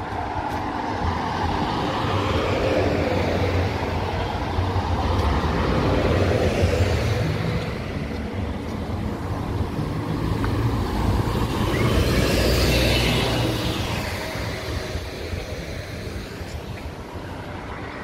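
Road traffic on a busy city street: vehicles passing close by, the noise swelling and fading, with loud passes a few seconds in and again about twelve seconds in.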